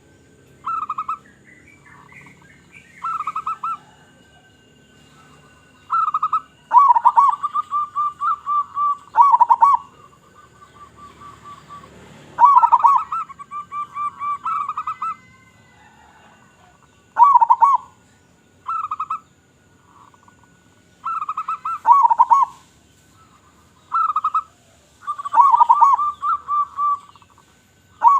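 Zebra doves (local perkutut) cooing in repeated phrases of rapid, pulsing coos, some brief and others drawn out into a rippling trill of a couple of seconds, one phrase following another every second or few.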